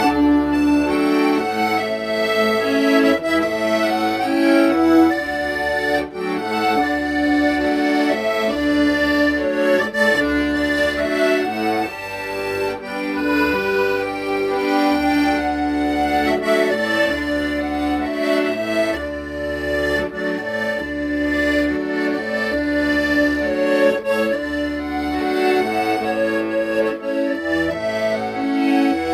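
Accordion playing a slow melody in held notes over an alternating bass accompaniment.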